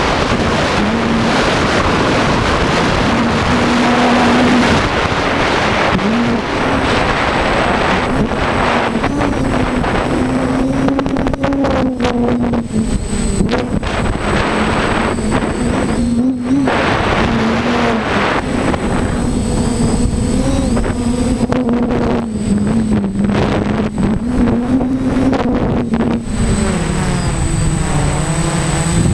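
DJI F550 Flamewheel hexacopter's motors and propellers humming, heard close from the camera on the craft, under heavy wind buffeting on the microphone that thins out after the first several seconds. The hum's pitch wavers up and down and drops near the end.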